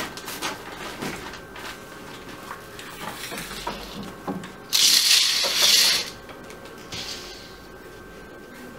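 Small jars, lids and packets being handled on a table, with light clinks and taps, then a loud plastic rustle lasting about a second and a half midway.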